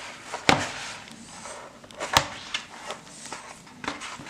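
Hands squeezing and kneading soft homemade play dough in a plastic bowl, with small squishy clicks and two sharp knocks, about half a second and about two seconds in.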